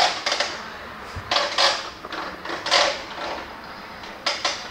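Finger belt sander with a 120-grit belt touching the TIG-welded wrought iron leaf in short passes. It makes a string of brief rasping bursts, each under half a second, as the repair is dressed down.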